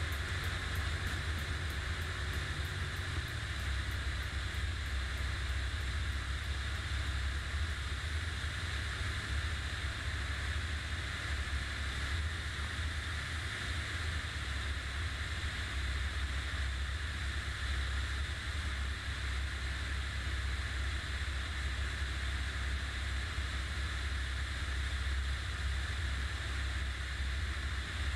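Steady rush of wind on the microphone over the low drone of a microlight trike's engine, heard from the open cockpit as it descends towards the runway. A faint higher hum stops about three seconds in.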